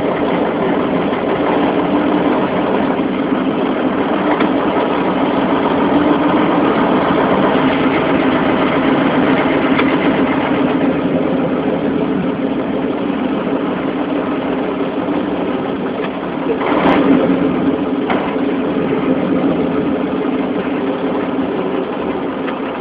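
Engine of a heavy grain-hauling vehicle running steadily, with a short louder swell and a knock about 17 seconds in.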